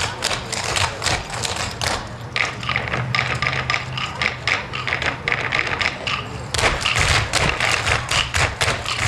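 Clogging: a group of dancers' metal shoe taps striking the stage floor in fast, rhythmic volleys. The tapping thins out about two seconds in and picks up densely again about six and a half seconds in.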